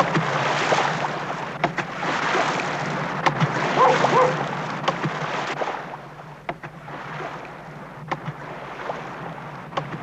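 Shallow surf washing in, with a stick slapping the water's surface in sharp, irregular strikes: fishermen beating the water to imitate leaping mullet and call dolphins. The water noise drops off about six seconds in, leaving quieter surf and a few more slaps.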